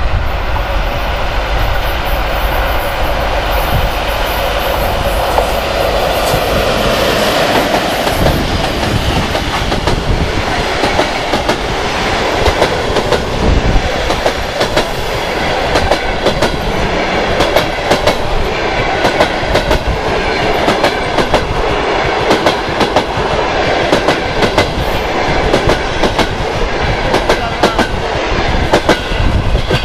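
ChS8 electric locomotive running past with a steady rumble and hum in the first several seconds. Then a long train of passenger coaches rolls by, wheels clacking over the rail joints in a fast, continuous run of clicks.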